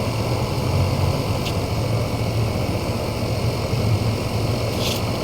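A steady low motor hum, like an engine idling or a small motor running, with two faint clicks near the end.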